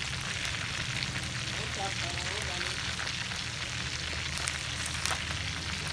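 Marinated chicken pieces frying in hot oil in a pan: a steady sizzle with a few sharp pops of spattering oil.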